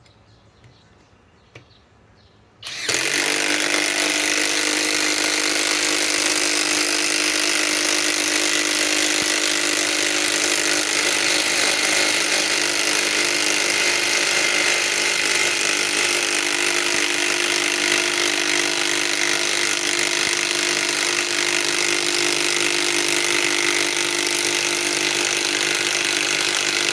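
Flex 24-volt compact impact wrench hammering without a break for about 25 seconds, starting about three seconds in, as it drives a lag screw into wood. It is running on a weakened 2.5 Ah battery that is down to two cells.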